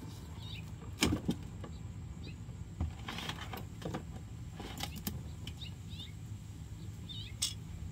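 Scattered clicks and knocks, the loudest about a second in and another near the end, over a low steady rumble, with short high bird chirps now and then.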